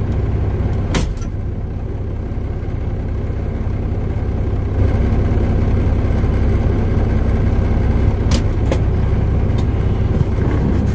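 Truck engine idling steadily, heard from inside the cab, a little louder from about five seconds in, with a few brief sharp clicks.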